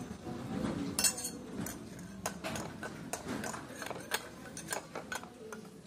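A small metal spoon clinking and scraping in a miniature stainless-steel bowl: a string of light, irregular clinks as it is stirred.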